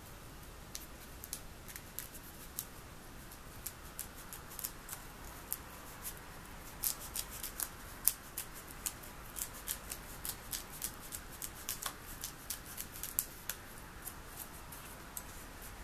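Scissors snipping thin polyethylene foam underlayment: a run of short, crisp snips and blade clicks, thickest in the middle and thinning out near the end.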